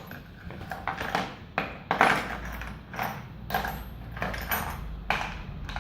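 Hand tools clattering and knocking against each other and the floor as they are gathered up after scattering, a run of irregular short knocks.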